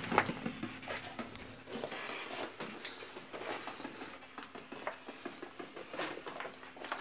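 Irregular footsteps scuffing and crunching over grit and small rubble on a concrete floor, with light clothing rustle and a faint steady hum underneath.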